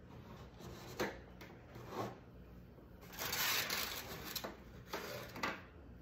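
Small objects being handled on a worktable: a few light knocks and a longer scraping rustle about halfway through.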